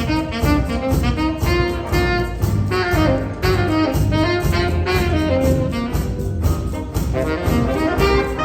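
Saxophone section of alto, two tenor and baritone saxophones playing a jazz tune together over bass guitar.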